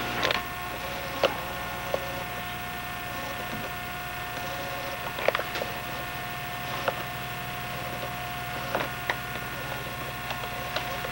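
Steady hum of an old camcorder recording with several fixed tones, broken by about ten light, scattered clicks and knocks of the camera being handled.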